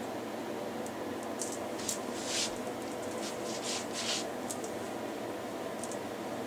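Hair and foam flexi rods rustling and scrunching as they are handled and rolled in, in a run of short bursts from about a second to four seconds in, with a couple more later, over a steady background hiss.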